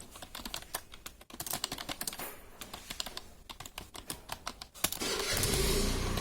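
Computer keyboard keys clacking in rapid, irregular keystrokes as someone touch-types at speed. About five seconds in, a steady low hum with hiss comes in under the typing.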